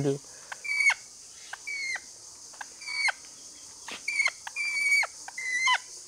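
A lorikeet squawking while it is caught and held to have its cut wing feathers pulled: a run of short, shrill calls, each ending in a quick drop in pitch.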